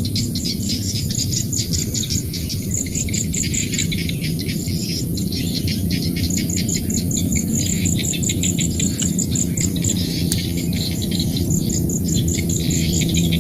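Rice-field chorus of insects, birds and frogs: a steady high insect buzz with rapid, repeated high chirps, bird calls, and a dense low croaking chorus underneath.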